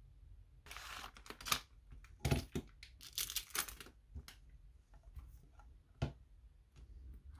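Plastic packaging rustling and crinkling in several bursts as a replacement iPhone XS Max housing is unpacked, then a few light clicks and one sharp knock about six seconds in as the metal housing is handled.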